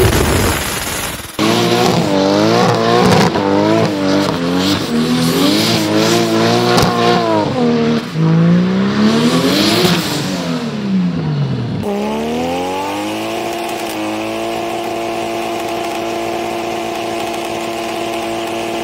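Drift car engine revving hard, its pitch swinging up and down again and again as the car slides with its tyres spinning and squealing. In the last several seconds the engine holds a nearly steady high pitch that sags slowly. It opens with about a second of loud rushing noise from a hood-exit exhaust shooting flame.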